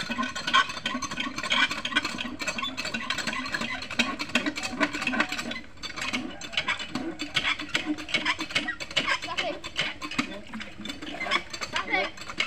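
Water poured from a plastic jug into the head of a hand pump to prime it, giving a dense, uneven scratchy splashing and rattling.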